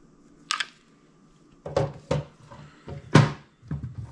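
Hard plastic knocking and clunking on a wooden tabletop as the filament dryer's clear plastic housing and its power adapter are handled and set down: a sharp click about half a second in, then several thuds, the loudest a little past three seconds.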